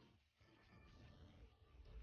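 Faint voice-over narration at a very low level.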